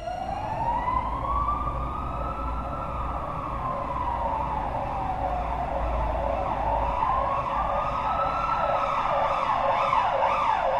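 Emergency vehicle siren wailing, its pitch rising and falling slowly, then switching to a fast, repeated yelp about seven seconds in.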